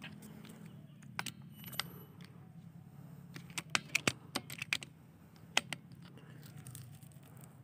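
Irregular sharp clicks and taps, most of them bunched about three to five seconds in, from handling the scoped rifle as it is swung across the palm fronds, over a steady low hum.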